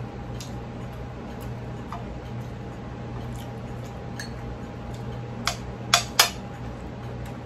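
Faint chewing and small ticks while eating by hand, then three sharp clinks of a utensil against ceramic dishes about five and a half to six seconds in, over a steady low hum.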